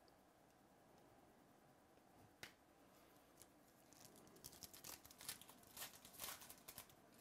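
Foil wrapper of a Donruss Optic baseball card pack being torn open and crinkled by hand: a single faint click about two seconds in, then a run of quick crackling tears over the last three seconds.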